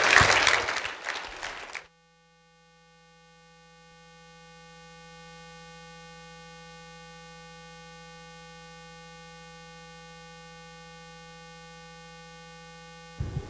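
A burst of applause and laughter that cuts off abruptly about two seconds in. After a moment of silence, a steady electronic tone made of several fixed pitches fades in over a few seconds, then holds unchanged until it cuts off just before the end.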